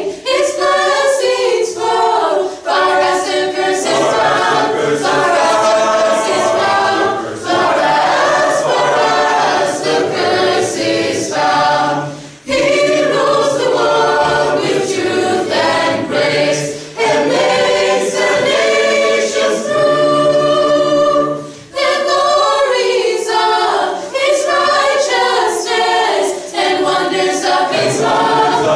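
Mixed-voice high school choir singing, in long phrases with short breaks for breath about twelve and twenty-two seconds in.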